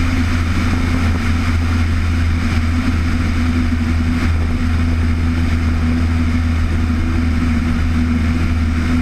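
Steady engine drone, holding one pitch without rising or falling.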